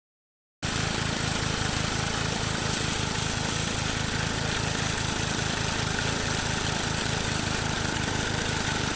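A small engine running steadily with a fast, even beat and a strong hiss over it, cutting in abruptly less than a second in.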